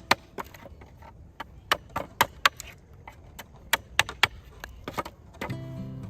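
Blade chopping bamboo: a run of about a dozen sharp, irregular strikes, some in quick pairs.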